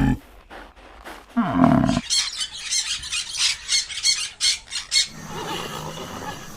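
Animal calls: a short pitched call, then a run of rapid, repeated high calls for about three seconds, then lower, softer calls.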